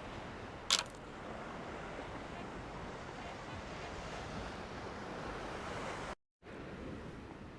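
Surf breaking on a sandy beach, a steady wash of waves with some wind, broken by one short sharp click under a second in. The sound cuts out completely for a moment near the end.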